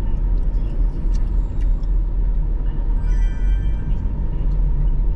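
Steady low road and engine rumble inside a car's cabin cruising at about 50 km/h. About three seconds in, a brief high-pitched tone sounds over it.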